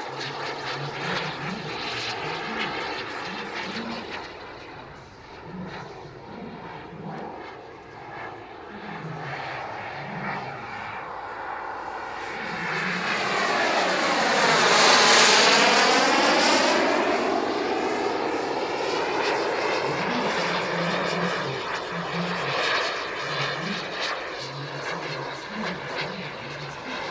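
Turbine engine of a large radio-controlled F-104 Starfighter model jet flying past: a steady rushing whine that swells to its loudest about halfway through, its high whistle dropping in pitch as it goes by, then fading.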